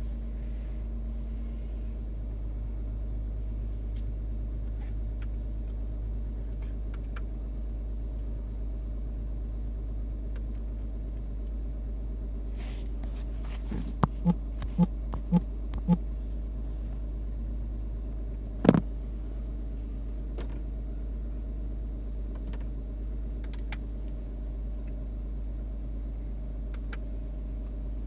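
Steady low rumble with a faint hiss. A little past the middle come five short low blips in quick succession, and a single sharp click follows a few seconds later.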